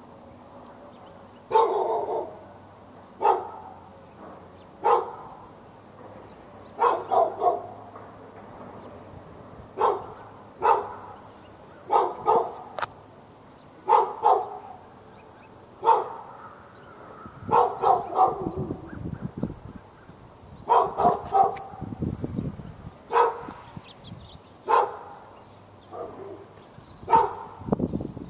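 A dog barking over and over, single barks and quick runs of two or three, every second or two without letting up. It is the nuisance barking of a dog at the neighbouring dogs.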